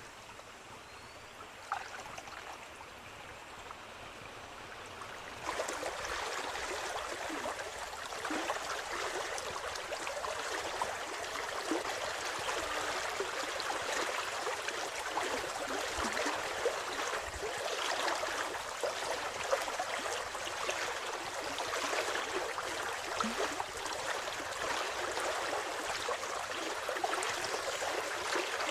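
River water sloshing, trickling and splashing around a person wading chest-deep and groping along the riverbed, with many small splashes. The water noise gets louder about five seconds in.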